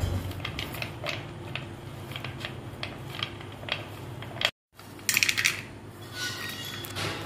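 Peanuts clicking against a ceramic plate as a hand mixes them with chopped onion and chili powder, then a louder burst of rattling about five seconds in as the peanuts are tipped into a steel bowl. A steady low hum runs underneath.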